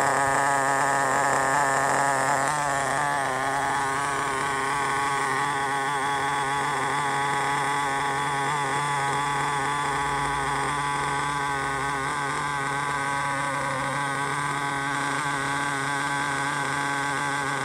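Nitro glow engine of a 1/10 VRX XR4 rally car idling steadily on its first break-in run, a high buzzing note whose pitch wavers slightly.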